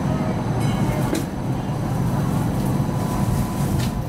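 A Hong Kong Light Rail Phase I light rail car running along the street track, heard from inside the passenger cabin: a steady low rumble of motors and wheels, with two brief sharp clicks, one about a second in and one near the end.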